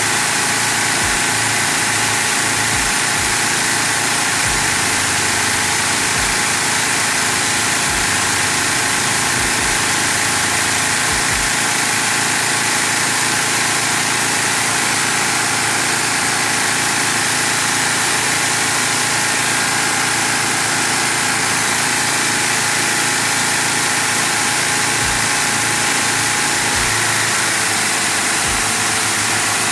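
LEGO inline-six vacuum engine running at speed, about 1600 to 1800 rpm, its pistons and valves clattering over a steady loud rush of air drawn through it by the vacuum source.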